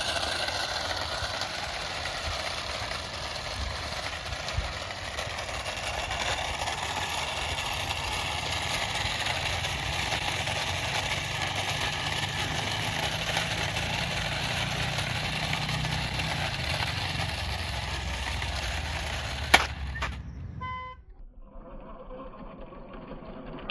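Battery-powered toy RC cars running: a steady whirring of small electric motors with the wheels rolling on a hard floor. It ends with a sharp click about 20 seconds in, after which the sound drops off to something quieter.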